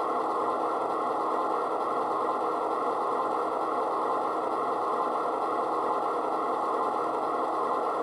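Model diesel locomotive sound from a Bachmann FA-2/FB-2 Soundvalue DCC sound decoder, an ALCO prime mover running steadily, played through the model's small speaker with little bass. The sound changes abruptly right at the end.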